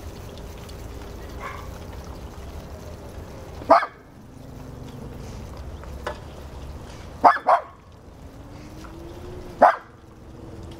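Dog barking in short, sharp single barks: one about four seconds in, a quick pair a little after seven seconds, and one more near the end.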